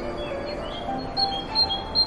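Calm background music of slow held notes with high bird chirps over it. About a second in, the chirps settle into a quick, regular run alternating between two pitches.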